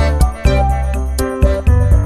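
Background music with a steady beat: a bright keyboard melody over deep bass and regular percussive hits.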